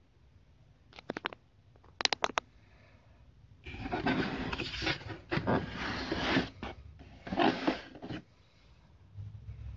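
Two quick runs of sharp clicks, then several seconds of scraping and rustling as the boots and their cardboard shoebox are handled and turned on the carpet.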